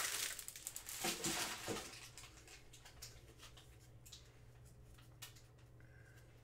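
Crinkling and rustling of opened pack wrappers that dies away in the first two seconds, then scattered light clicks and taps as a thick stack of trading cards is picked up and handled.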